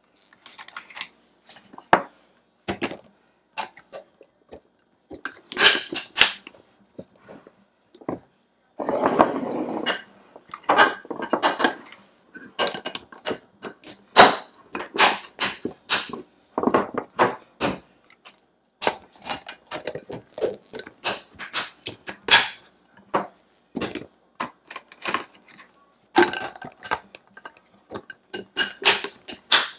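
Glass meal-prep containers clacking against each other and the counter as they are stacked, with plastic lids being pressed on and their locking tabs snapped shut: a run of irregular sharp clicks and knocks, denser for about a second around nine seconds in.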